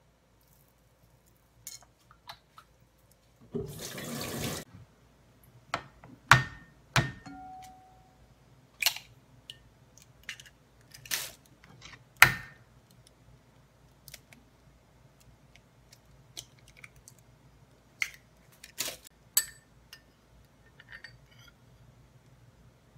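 Kitchen food-prep handling sounds: sharp taps and knocks of eggs cracked against a bowl and of bowls and a spoon being handled, loudest about six and twelve seconds in. A short rushing noise comes about four seconds in.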